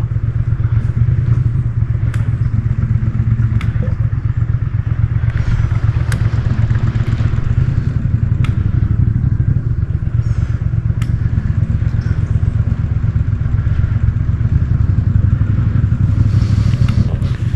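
A boat motor running steadily with a low, even drone, with a few light clicks and knocks over it.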